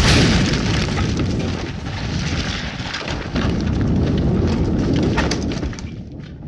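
Explosion sound effect: a sudden blast at the start, then a long rumble with crackling and scattered sharp cracks, dying away near the end.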